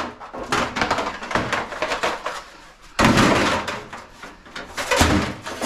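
Scrap items being handled and set down: repeated clattering knocks, with a loud crash about three seconds in and another bang about five seconds in.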